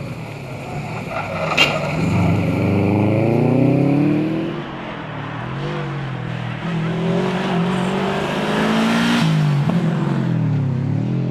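Subaru WRX STI's turbocharged flat-four engine heard from inside the car, pulling hard with the revs rising, easing off about four seconds in, rising again and dropping back once more near the end. A single sharp click comes about a second and a half in.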